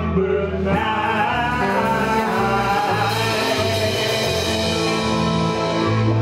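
A live rock and roll band playing: a male voice singing over electric guitars, keyboard and a drum kit.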